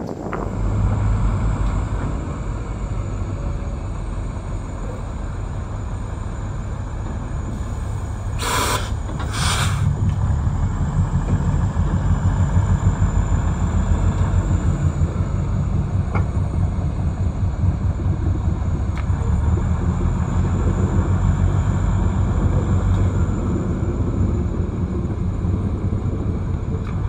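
Diesel locomotive engine running with a steady low rumble, a little louder from about ten seconds in. Two short bursts of hiss-like noise come about a second apart, near a third of the way through.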